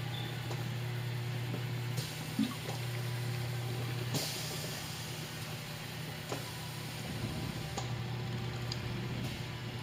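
Massage chair's motor humming steadily, cutting out briefly about two seconds in, stopping with a short hiss a little after four seconds, and starting again near the end, with a few faint clicks.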